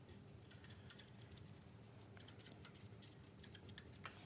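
A felt-tip marker writing on paper: faint, quick scratchy strokes as words are written by hand.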